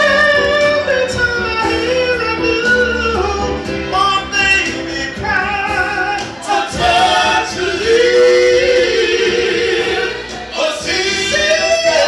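An R&B vocal group singing live, male and female voices together, over backing music, with a long held note about eight seconds in.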